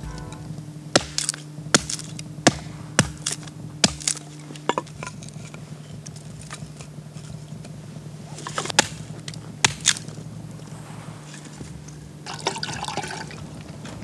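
Small campfire of freshly split kindling burning, crackling with sharp, irregular pops.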